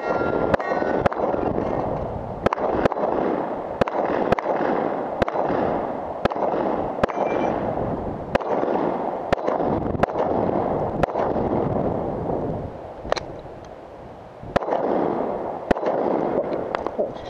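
Semi-automatic pistol firing a string of about twenty shots, spaced roughly half a second to a second apart, with a longer pause about two-thirds of the way through.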